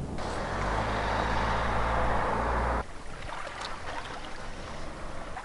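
Small fishing boat's engine running steadily as it motors across the bay, a low hum under a rushing hiss, cut off suddenly about three seconds in. After that there is only quieter outdoor background with a few light ticks.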